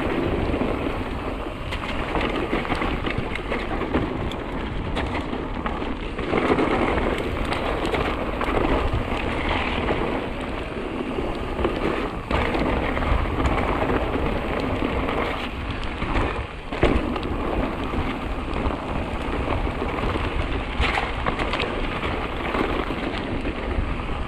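Mountain bike riding down a wet trail: a continuous wash of tyre crackle and rattle with wind rumbling on the microphone.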